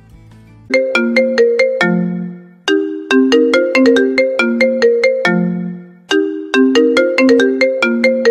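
Smartphone ringtone for an incoming call, starting under a second in: a quick melody of short notes, repeated in phrases with brief pauses. The call is the alert the gate security system places when the car gate is opened.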